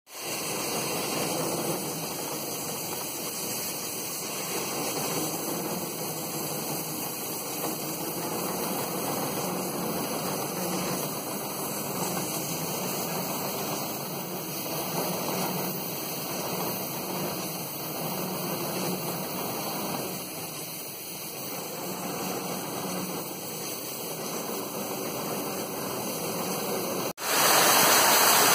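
Steady hiss of steam around the mechanical stoker's engine and drive shaft of a Beyer-Garratt steam locomotive. Near the end it cuts to a louder, brighter steady roar from the coal fire in the firebox.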